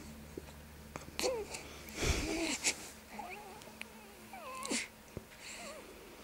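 Infant cooing: several short gliding vocal sounds, with a louder breathy noise about two seconds in.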